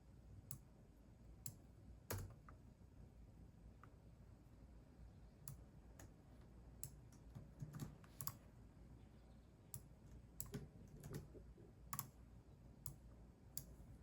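Faint, scattered computer keyboard keystrokes: single irregular clicks, roughly one a second, as in slow, hesitant typing.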